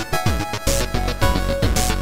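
Electronic chiptune-style background music with a steady beat: bass drum hits that drop in pitch, held synth notes, and a snare-like hit about once a second.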